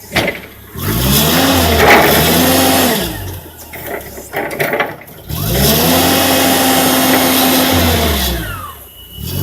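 Forklift revving up twice to work its hydraulic clamp attachment: each time the pitch rises, holds steady for a couple of seconds, then falls back.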